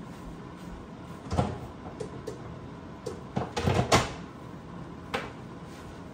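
A few scattered knocks and clunks of things being handled in a kitchen, with cupboard doors shutting, the loudest cluster about four seconds in.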